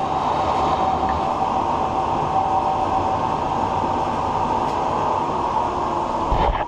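Large 36x144 engine lathe running under load while a carbide insert takes a 50-thou-deep cut: a loud, steady mechanical running noise with a steady tone through it. A low thump comes near the end.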